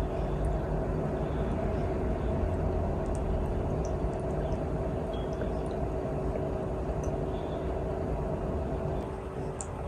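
Steady machine hum with a low rumble and two held tones, like a fan or small motor running, easing off slightly near the end.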